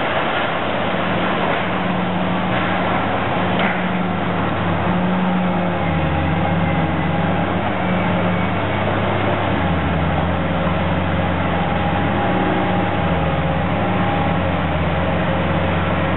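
Hydraulic demolition excavators' diesel engines working under load, the engine note rising and falling, over a steady noisy hiss. A couple of faint knocks come in the first few seconds.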